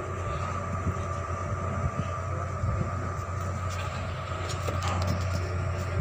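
Steady low machinery drone with a constant high whine above it, and a few faint knocks.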